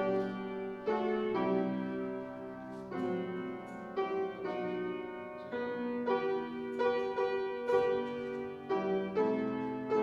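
Piano playing a slow, quiet passage of chords. Each chord starts sharply and rings on as it fades, and a new one is struck roughly every second.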